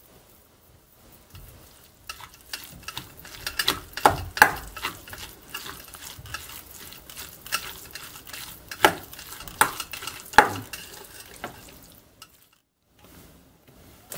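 Metal spoon stirring a wet tuna and egg salad in a stainless steel bowl: irregular clinks and scrapes of the spoon against the bowl, stopping about two seconds before the end.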